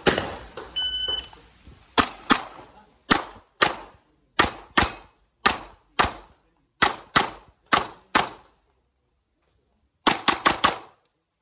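Shot-timer start beep, then a pistol-caliber carbine firing: six pairs of shots about a second apart, then after a short pause a fast string of four shots.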